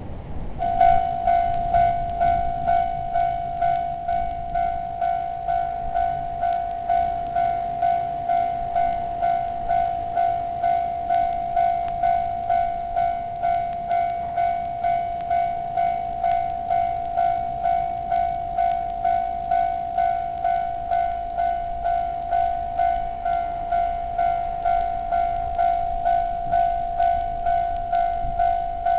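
Japanese railway level crossing's electronic warning bell starts ringing just under a second in, then goes on in an even repeating ding-ding of about two strikes a second on one steady tone.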